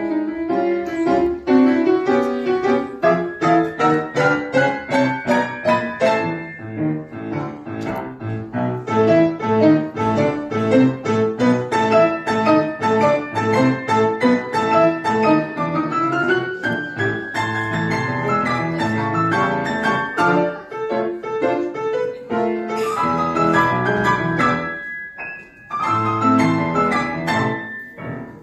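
Piano ensemble playing a pop-style piece: a busy stream of quick piano notes over a steady bass line.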